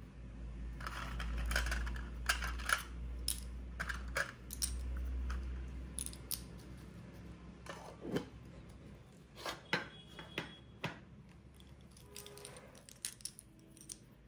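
A small round metal tin of tiny charms being handled: a run of light metallic clinks and clicks as the contents shift, with rustling and low handling thumps over the first five seconds and scattered sharper taps after.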